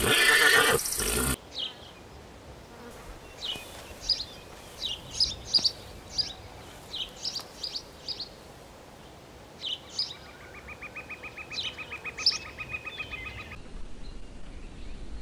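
A horse whinnies loudly during the first second or so, then the sound cuts to a quieter background of small birds giving short, scattered chirps, with a rapid even buzzing trill, like an insect, for a few seconds about two-thirds of the way through.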